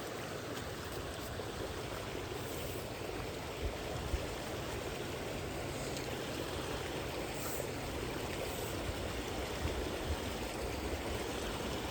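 Fast-flowing creek water rushing over rocks, a steady even rush.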